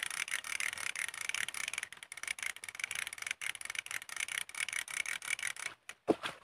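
Fishing reel ratcheting: a rapid, uneven run of clicks that breaks off about six seconds in.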